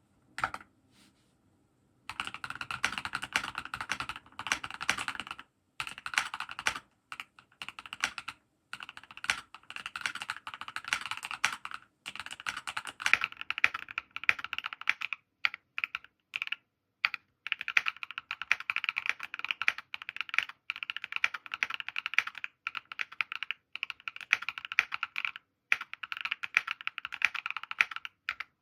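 Typing on a Keychron Q2 mechanical keyboard with Durock Ice King linear switches and PBT keycaps: rapid runs of keystrokes broken by short pauses, beginning about two seconds in.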